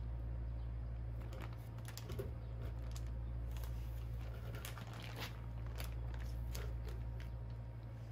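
Plastic bags holding squid being handled and set on a kitchen scale's stainless steel pan: scattered crinkling and light clicks and taps, busiest in the middle, over a steady low hum.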